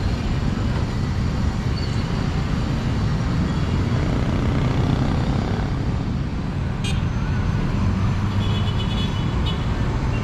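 Steady rumble of road traffic, with a short sharp click about seven seconds in.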